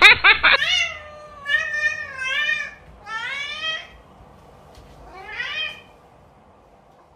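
Domestic cat meowing repeatedly: about four long, wavering meows with short pauses between them, opening with a short, louder sound right at the start.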